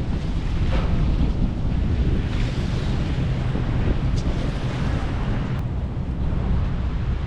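Wind buffeting the microphone over a steady low rumble and rushing water, aboard a boat on choppy water.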